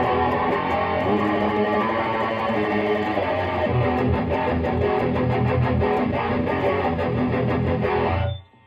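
Heavily distorted electric guitar riffing: a Gibson Les Paul through a Lone Wolf Audio Bullet Belt pedal into a Peavey 6505 amp and 2x12 cabinet. The riff stops abruptly near the end.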